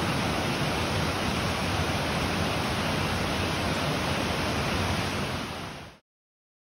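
Rushing water of a small cascading stream, a steady loud rush that fades out quickly near the end into dead silence.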